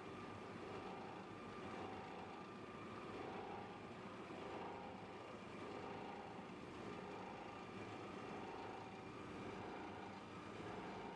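Industrial machinery of a plastic scrap washing and drying plant running steadily, a continuous motor hum with a faint tone that swells and fades about once a second.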